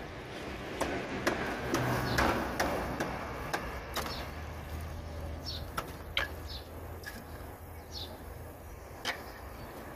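Hands scraping and brushing sand around a buried PVC pipe joint, with scattered sharp clicks and knocks, busiest in the first three seconds; a few short high chirps now and then and a faint low hum.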